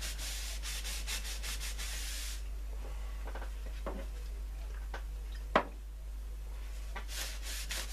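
Paper towel rubbing colour into the wood veneer of a radio cabinet in quick back-and-forth strokes. The strokes stop after about two seconds and pick up again near the end. In the pause there are a few light ticks and one sharp click about two-thirds of the way through.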